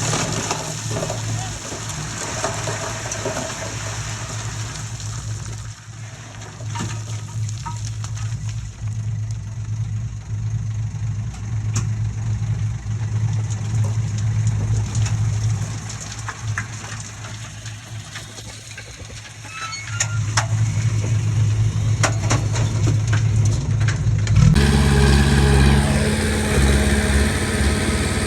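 Komatsu D20P bulldozer's diesel engine running steadily, softer through the middle, picking up about twenty seconds in and turning suddenly louder and heavier near the end, with scattered short clicks and clanks over it.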